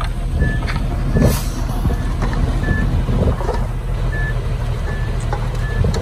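A reversing alarm on heavy earthmoving machinery beeps steadily, about four beeps every three seconds. It sounds over the low rumble of diesel engines, with a few knocks.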